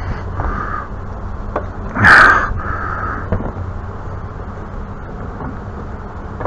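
A crow cawing: three harsh caws, the loudest about two seconds in, over a steady low rumble.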